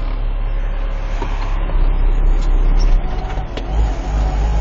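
Concrete mixer truck's diesel engine running with a steady low rumble that grows heavier near the end.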